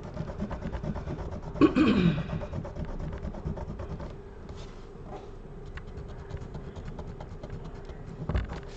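Rubbing and scraping as the iPad's frame is wiped clean of old adhesive with a microfiber cloth and isopropyl alcohol, in quick fine strokes. A short sound falling in pitch about two seconds in, and a thump near the end.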